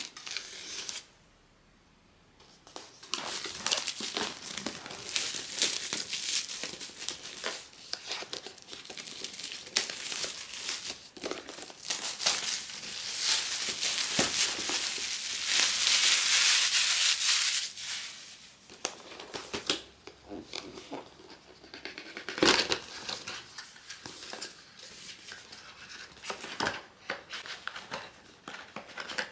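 Blind-box packaging being handled and opened: crinkling wrapping and tearing, with many small crackles and clicks. It starts after a short pause, grows densest about halfway through, then thins to scattered crinkles.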